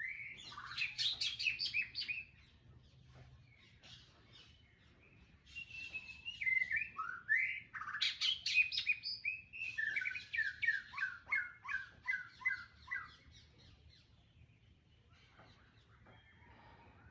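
Songbird singing in rapid runs of chirping notes: a short phrase at the start, then a longer phrase from about five seconds in to about thirteen seconds.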